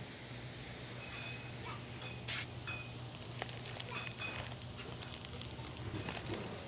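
A steady low hum with scattered light clicks and taps, and a short rustle about two seconds in.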